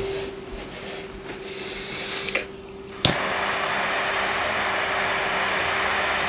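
Quad jet butane torch lighter clicked alight about three seconds in, then its four jet flames hissing steadily. Before the click there are only faint handling sounds.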